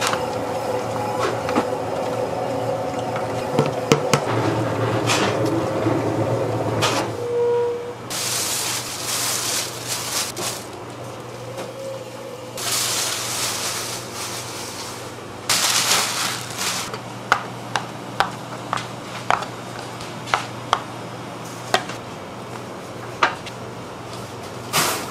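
Commercial spiral dough mixer working bread dough in its steel bowl. For the first several seconds it runs with a steady motor whine and hum, then gives stretches of loud churning and slapping as the dough turns. In the last third there are sharp knocks about once a second.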